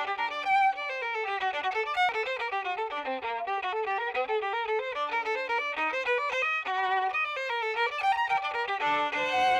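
Solo violin playing a fast passage of quick, separate notes, at times with two strings sounding together.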